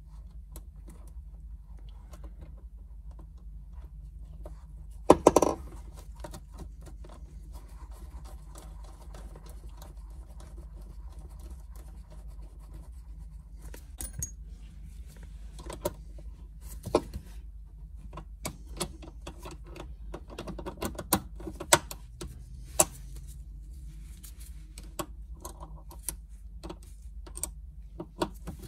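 Scattered metallic clicks and clinks of shifter cable ends, linkage and tools being handled, with a louder rattle about five seconds in and a run of sharper clicks later on, over a low steady hum.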